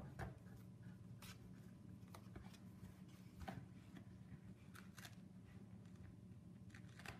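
Faint rustling and scattered light clicks of hands loosening the laces of a running shoe, over a low steady hum.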